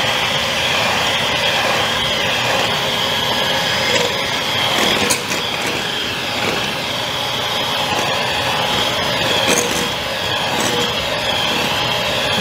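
Handheld electric mixer running steadily at high speed, a motor whine with its beaters whipping egg whites in a glass bowl for meringue, at the stage of beating them to foamy.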